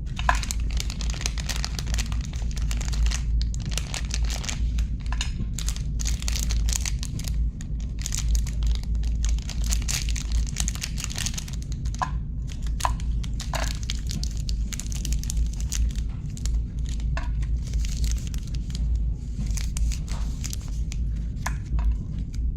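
Chocolate bar wrappers crinkling and tearing as they are opened by hand, an irregular crackle over a steady low hum.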